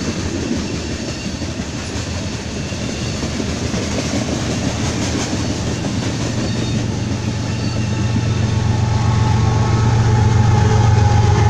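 Loaded freight train of covered hopper cars rolling steadily past on the rails. In the last few seconds two Union Pacific diesel locomotives at the rear of the train come past close, and their engines' low drone grows louder.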